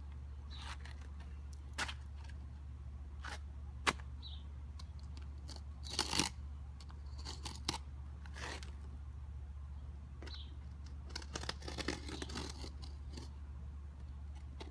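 Utility knife cutting through a roof shingle: scattered crunching, scraping strokes with a few sharp clicks, thickest in bursts about six, eight and eleven to thirteen seconds in.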